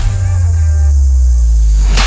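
Loud background rock music: a low chord is struck at the start and left ringing, and the next hit lands right at the end.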